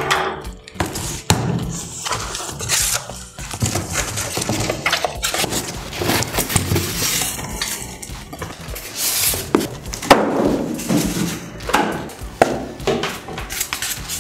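Unpacking a UPS from its cardboard box: irregular rustling and scraping of cardboard flaps and white foam packing end caps being pulled off, with scattered knocks as the unit is handled and set down on the table.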